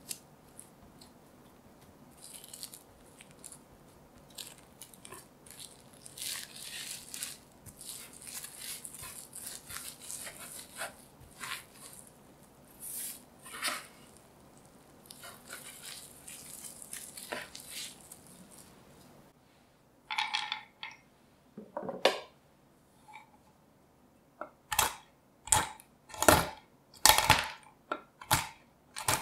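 Plastic wrap crinkling and rustling as a log of cookie dough is shaped and rolled inside it. After a short pause and a couple of brief clatters, a chef's knife chops whole almonds on a wooden cutting board: sharp, regular knocks, about one and a half a second, near the end.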